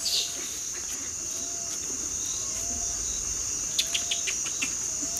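Steady high-pitched insect chirring in tropical woodland. A short, low, slightly rising call repeats about once a second, with a few quick high chirps a little before the end.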